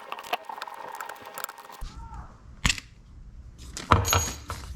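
Clicks and knocks of small hardware and hand tools being handled, with a sharp knock about two and a half seconds in and a cluster of clicks near the end over a low rumble.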